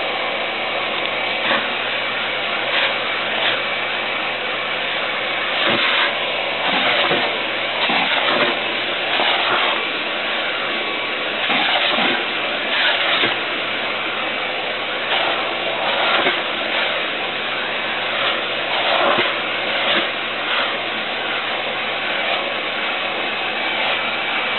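Vacuum cleaner running steadily with a faint high whine, its sound swelling briefly every second or two as the nozzle is moved about.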